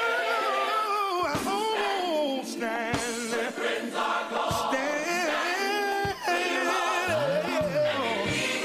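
Gospel song: voices singing long held notes with vibrato and sung runs.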